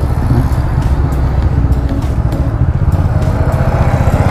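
Motor vehicle engine running steadily close to the microphone: a low rumble with a fast, even pulse.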